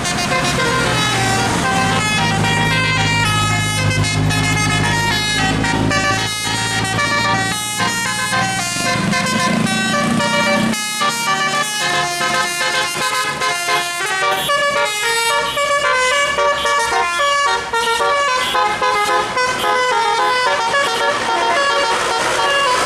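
A bus's Basuri musical telolet air horn playing a long melody of quick, stepped notes. A low steady drone underneath stops about halfway through.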